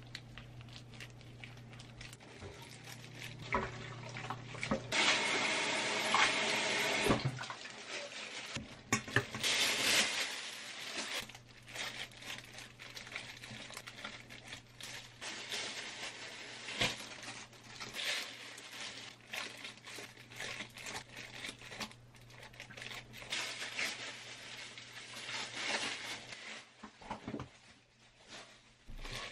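Water running and splashing into a stainless steel sieve and bowl for a few seconds as cooked konjac noodles are drained and rinsed, after a steady low hum at the start. Afterwards, scattered clicks of metal tongs against the sieve as the wet noodles are lifted and handled.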